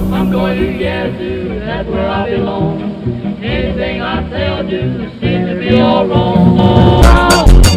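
Background music with a sung vocal over a steady beat; loud drum hits come in near the end.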